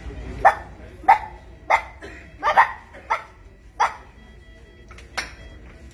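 A boy barking like a dog: about seven short, sharp barks in quick succession, then one weaker bark near the end. The barking is claimed to be a sign of rabies from a dog bite, which is disputed in favour of a possible mental disorder.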